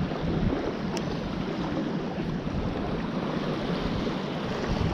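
Steady wind rushing over the microphone at open water, with the sound of water and a single faint click about a second in.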